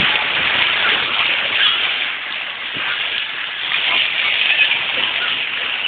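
Outdoor crowd ambience: many people talking indistinctly, blended into a steady hiss-like wash of noise.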